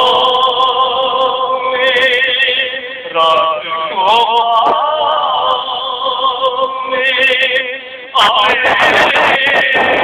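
Marsiya khwani: male voices chant an Urdu elegy for the martyrs of Karbala in long held notes with a wavering vibrato, with no instruments. New phrases start about three seconds in and again about eight seconds in.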